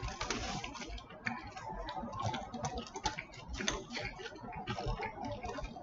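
Aluminium foil wrapper crinkling and crackling in irregular clicks as a burrito is handled and eaten off it, with close-up eating sounds.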